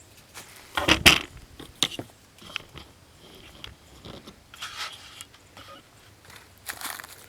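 Hickory wood being handled and shifted: a string of irregular knocks, scrapes and crunches, the loudest about a second in, with no saw running.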